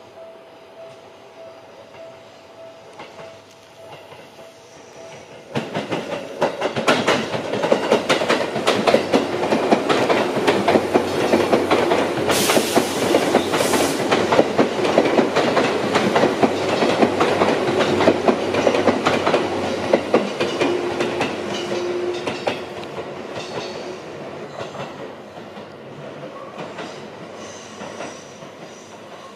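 Seibu 10000 series 'New Red Arrow' limited express electric train passing close without stopping, its wheels clattering rapidly over the rail joints. The clatter starts suddenly about five seconds in and fades away over the last several seconds.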